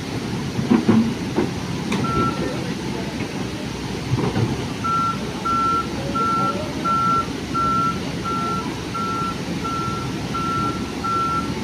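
A vehicle's reversing alarm beeping: one beep about two seconds in, then a steady run of evenly spaced beeps at about one and a half a second, over a low engine rumble.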